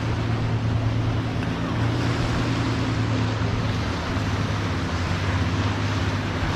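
A boat engine running steadily with a constant low hum, under the rushing noise of wind and waves.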